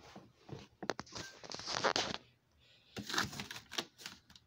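Handling noise: rustling and scraping with scattered clicks and taps, as the phone and cardboard pieces are moved about. Longer rustles come about a second in and again about three seconds in.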